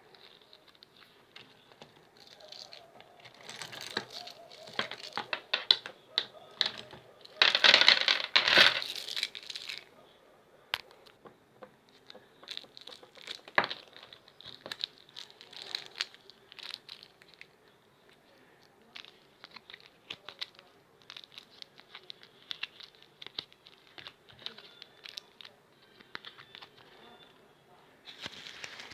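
Fidget toys being handled and played with: scattered clicks, taps and crinkling, with a dense rustling burst about eight seconds in.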